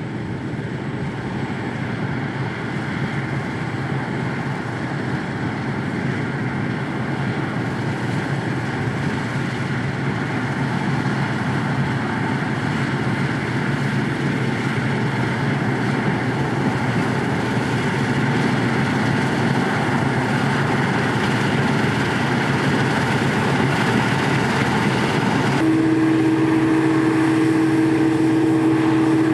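Large diesel farm harvest machinery running steadily under load. A strong, steady, high-pitched whine joins near the end.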